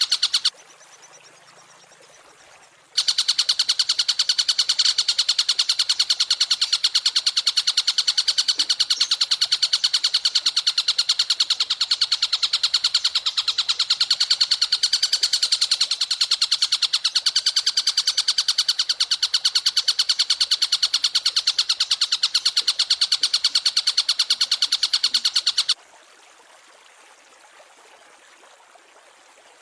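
A fast, even, high-pitched bird trill repeated continuously, of the kind played as a masteran to tutor caged songbirds. It starts about three seconds in, runs for over twenty seconds, then cuts off suddenly, leaving faint hiss.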